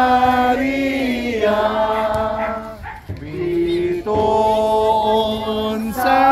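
A congregation singing a slow hymn to the Virgin Mary in unison, in Cebuano, on long held notes, with a brief breath break about three seconds in.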